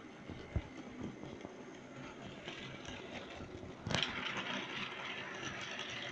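Model railway goods train running on the layout, its wheels clattering and clicking over the rail joints and points as the wagons pass close. There is a dull thump under a second in and a sharp click about four seconds in, after which the clatter is louder and busier.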